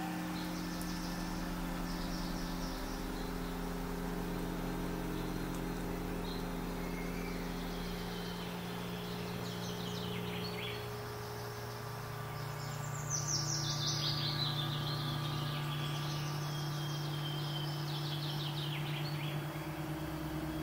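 Ambient drone of sustained low held chords that shift slowly in pitch, with birdsong trills and chirps over it. A high descending bird call about 13 seconds in is the loudest moment.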